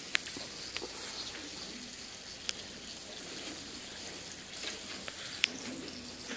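Meat sizzling on an open electric contact grill: a steady hiss, with three short sharp clicks.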